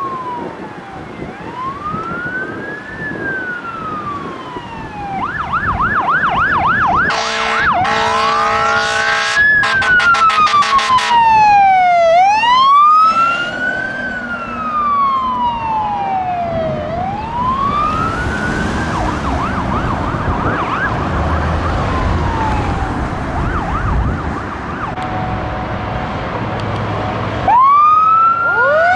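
Fire truck's electronic siren sounding in long rising and falling wails, switching twice to a fast yelp, with blasts of an air horn over it in the middle. A low engine rumble comes up later, and near the end a second fire apparatus's siren starts up.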